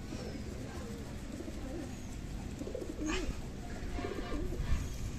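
Domestic pigeons cooing in their nest-box lofts: low, wavering coos that come and go through the second half, with a short rustle about three seconds in.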